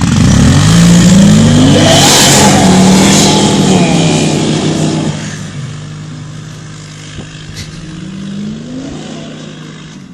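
A car and an ATV launching hard from a standstill in a drag race: engines revving up with rising pitch, loudest for the first few seconds and then fading as they pull away, with another rising rev near the end.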